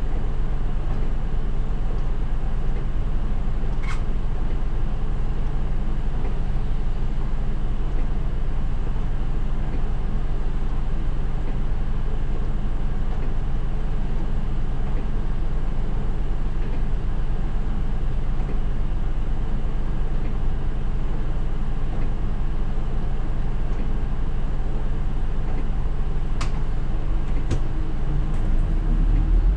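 Isuzu Erga city bus's diesel engine idling steadily, heard from the driver's seat, with a few faint clicks. Near the end the engine note picks up as the bus starts to move off in traffic.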